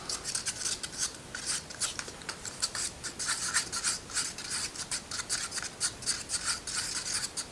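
Thinned acrylic paint being stirred in a cup, the stirrer scraping against the cup in quick repeated strokes, about three to four a second.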